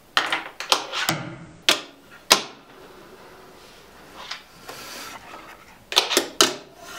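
Fingerboard clacking against a hard desk and ramp: a quick run of sharp clicks and knocks, a quieter stretch, then another cluster of clacks about six seconds in.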